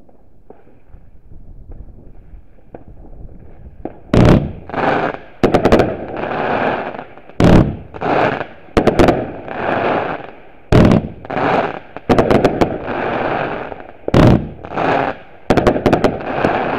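Fireworks going off at close range. After about four seconds of quiet with a few faint distant pops, a loud sharp bang comes roughly every second and a half, each followed by about a second of hissing crackle.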